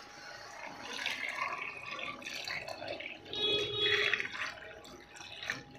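Wet, liquid sounds from a pot of pork curry cooking on the stove, bubbling and splashing irregularly, loudest about three to four seconds in.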